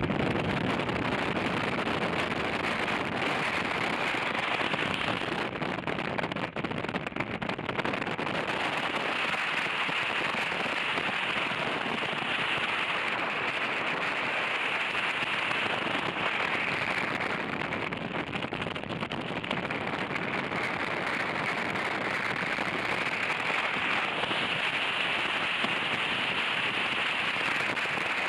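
Wind rushing over a motorcycle-mounted camera's microphone at highway speed, with tyre and road noise underneath: a steady rushing hiss that swells and eases a little, with no engine note standing out.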